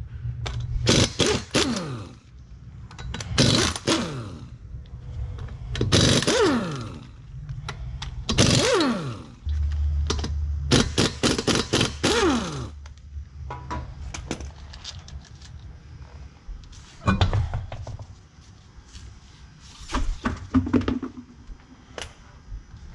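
Pneumatic impact wrench spinning off the wheel's lug nuts in five short bursts, each trailing off as the air motor winds down in pitch. Later come a few knocks and a scrape as the wheel is pulled off the hub.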